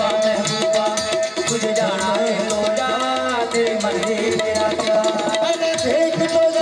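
Live Punjabi folk music: a fast hand-drum beat under a steady held note, with a melody line that bends up and down in the middle.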